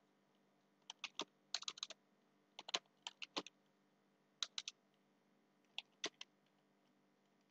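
Computer keyboard keys being typed: faint, irregular clicks in short clusters of a few keystrokes, with pauses between them.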